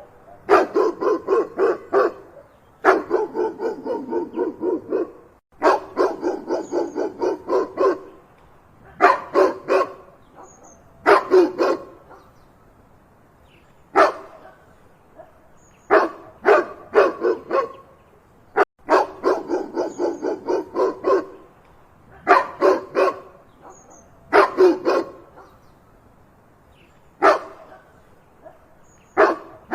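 A dog barking loudly in rapid volleys of several barks, about four or five a second, with short pauses between volleys and now and then a single bark.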